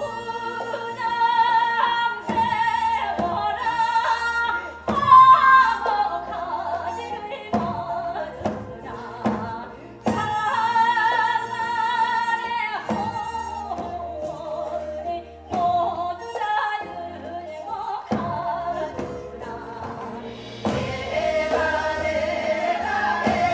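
A woman singing a Seodo (northwestern Korean) folk song in a wavering, heavy-vibrato voice, accompanied by traditional Korean instruments with a drum striking a steady beat. The sound grows fuller in the last few seconds.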